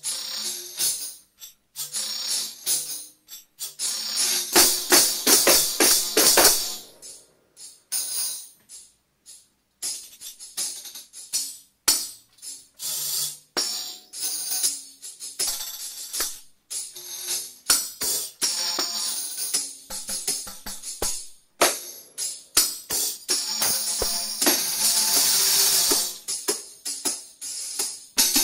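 An ensemble of seven tambourines playing antiphonally: fast struck and tapped jingle patterns passed between players, with sustained shaken rolls about four to six seconds in and again near the end, and brief silent pauses between phrases.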